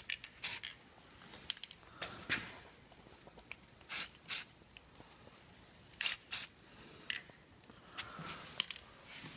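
Aerosol spray-paint can hissing in short, quick bursts, about nine of them, several in close pairs. Crickets chirp steadily underneath.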